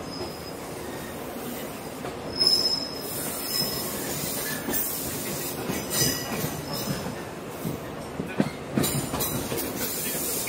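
Wheels of a Shinano Railway Series 115 electric train squealing in short, high-pitched spells and clicking over the rails as it runs through a many-tracked station approach, heard from inside the carriage. The loudest squeal comes about two and a half seconds in, with a run of clicks near the end.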